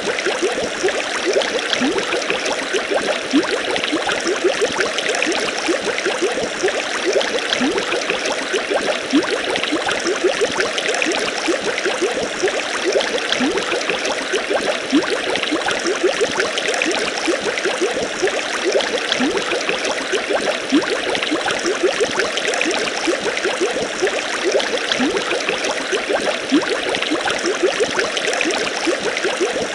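Steady storm rain: a dense, even hiss of falling rain, with many small rising plinks of drops landing in water.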